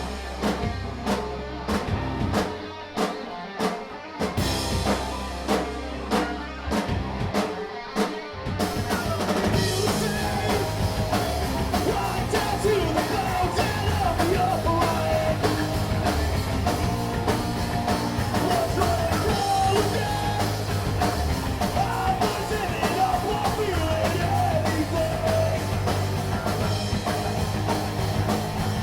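Rock song with drums and singing: drums alone at first, the full band coming in with the vocal about eight seconds in.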